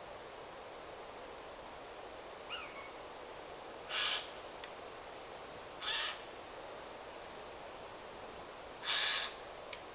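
A forest bird giving a short, harsh call three times, a couple of seconds apart, with a brief high chirp before the first. Under it runs a steady hiss of wind through the trees.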